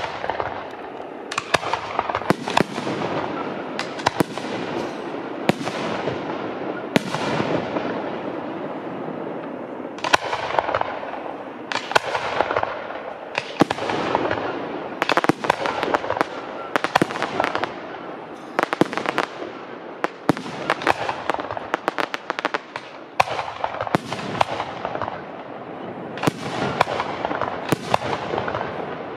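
Fireworks display: a rapid succession of dozens of sharp bangs from bursting shells over a continuous dense crackle.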